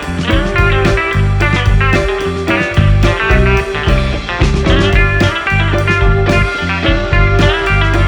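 Background music: a blues-rock tune led by guitar over a steady bass and beat.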